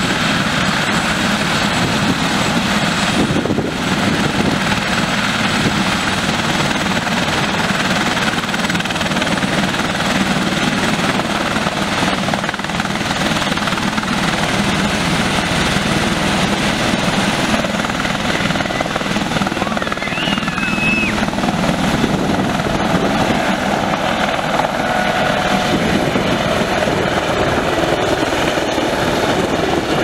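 Eurocopter EC130 B4 helicopter running steadily, its single turboshaft engine and rotors at a constant loud level, lifting off from the helipad by the end.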